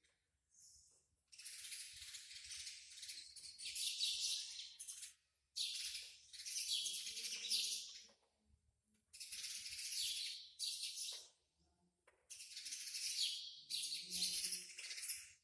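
Small bird chirping in four long bursts of rapid, high-pitched twittering, with short quiet gaps between them.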